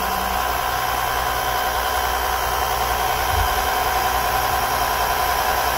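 Small 12-volt electric oil extractor pump running steadily: a constant motor whine over a low hum as it sucks the remaining engine oil out of the oil filter housing.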